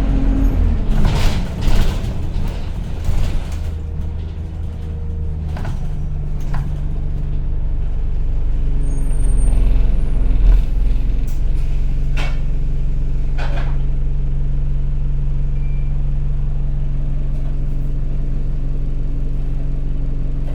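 Interior sound of an Enviro200 single-deck bus running with a whining drone, the 'loud hoover' noise. A few short air-brake hisses come in the first few seconds, and a few more around the middle. The engine noise builds over several seconds as the bus pulls away, then settles to a steady drone.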